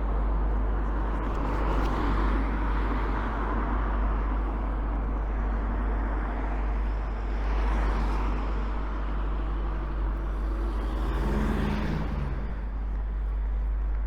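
Road traffic going by: cars passing every few seconds. A louder vehicle with an audible engine note passes near the end.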